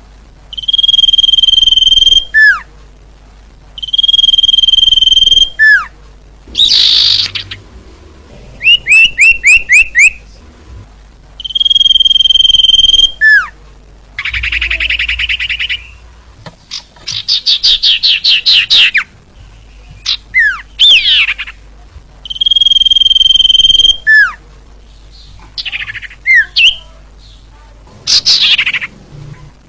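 Sirtu bird singing vigorously in a lure recording: a loud held whistle ending in a quick downward slur, repeated about four times, alternating with rapid runs of sweeping notes and trills.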